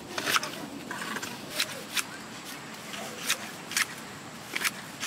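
Dry grass and brush being worked by hand, probably cut: a string of sharp, crisp rustling snaps at an uneven pace, with a pause of about a second near the middle.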